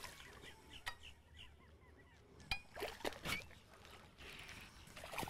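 A hooked largemouth bass splashing and thrashing at the surface as it is played close to the boat, with faint bird calls in the background.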